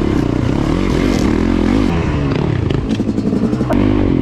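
Yamaha dirt bike engine being ridden hard on a rough trail, its note rising and falling as the throttle opens and closes. A choppy stretch of clattering comes about three seconds in.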